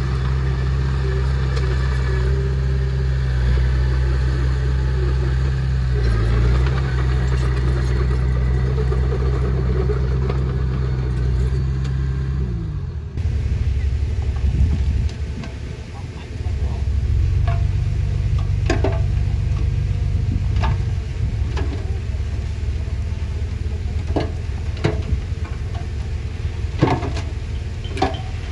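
Small crawler bulldozer's diesel engine running steadily under load, its pitch dipping briefly and then falling near the middle. Then a dump truck's engine runs with its bed raised while the soil load slides out, with scattered sharp knocks of clods and stones falling.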